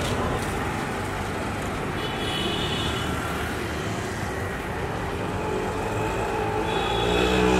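Steady city street ambience: a continuous rumble of traffic, with two brief faint high tones, one about two seconds in and one near the end.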